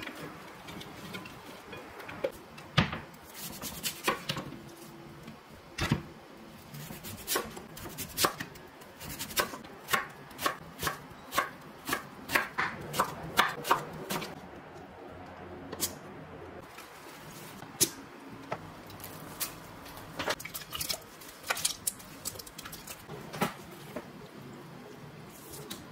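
Chef's knife cutting Korean radish (mu) into matchsticks on a wooden cutting board: sharp knife strokes against the board, coming in a quick run in the middle and again near the end.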